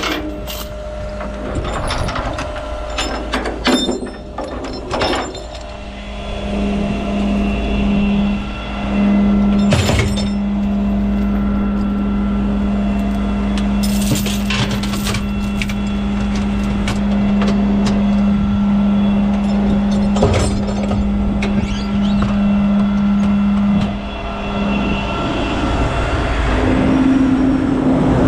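Steel tie-down chains clanking and rattling as they are gathered up and dropped into a truck's storage box. Under them, a steady mechanical hum comes in after about six seconds and drops away near the end.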